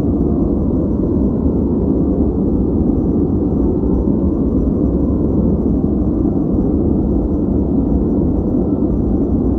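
Steady noise track played for focus, a constant deep rushing hiss with its weight in the low end and little treble, unchanging throughout.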